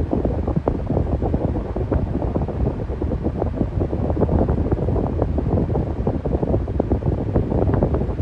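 Electric fan running steadily: a low rushing noise with a fast, irregular flutter.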